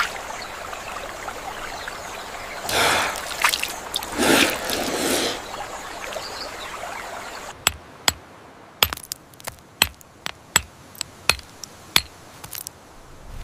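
Water splashing and trickling as cupped hands scoop from a shallow pool, with two louder splashes a few seconds in. After a sudden change about halfway through comes a string of about a dozen sharp stone-on-stone knocks, irregular at roughly two a second: a hammerstone knapping a stone flake.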